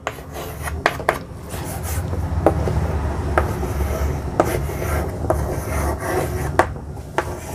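Chalk scratching and tapping on a blackboard as a word is written, with scattered sharp clicks over a low rumble.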